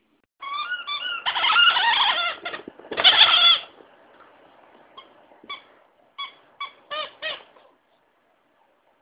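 Squeaky toy chicken squawking as it is squeezed: a few short squeals, two long drawn-out ones, then after a pause a quick run of short squeaks.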